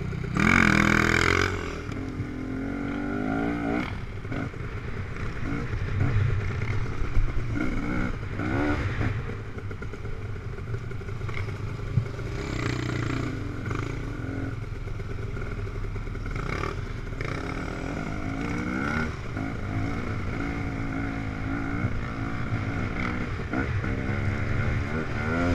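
Dirt bike engine ridden on a rough trail, its pitch rising and falling again and again as the throttle opens and closes, heard from the rider's helmet. A louder burst of revving comes about a second in.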